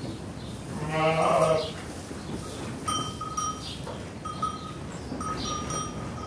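Footsteps of a crowd moving, a dense continuous shuffle of many treads. About a second in, a drawn-out call rises over it, and from about three seconds on a high clear tone rings on and off.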